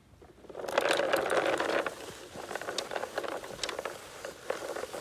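Plastic toy lawn mower clattering and clicking as it is pushed along. It is loudest for about a second soon after the start, then gives lighter scattered clicks and rattles.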